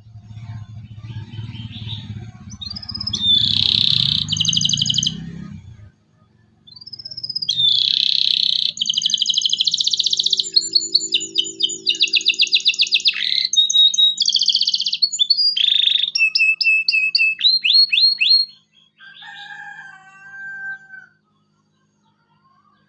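Canary singing: fast high trills and rolling runs of rapidly repeated notes, broken by a short pause about six seconds in, then a few fainter, lower notes near the end. A low rumble runs underneath for the first six seconds.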